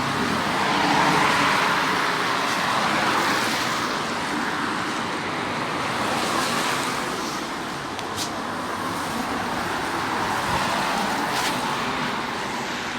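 Road traffic: several cars passing one after another, each one a slow swell of engine and tyre noise over a steady traffic hum.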